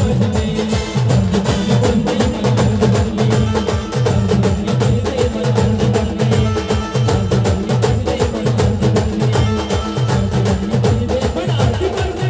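A village band plays an instrumental passage of a folk song, with no singing. A steady, quick percussion beat runs under a repeating bass figure.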